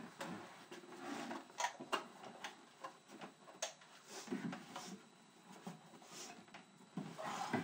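Someone rummaging through a desk and its open drawer: scattered light clicks, knocks and rustles of objects being handled.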